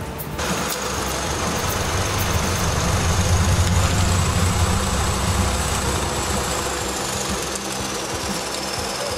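Off-road rally truck's diesel engine running under load, starting about half a second in, swelling for a few seconds and then easing back. A thin high whine rises and falls above it.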